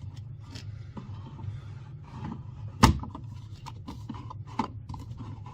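Small plastic clicks and handling noises from a smoke detector being fitted onto its ceiling mounting plate, with one sharp knock just under three seconds in.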